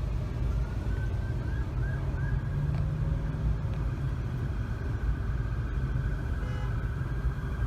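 Steady road-traffic noise: a continuous low rumble of passing cars.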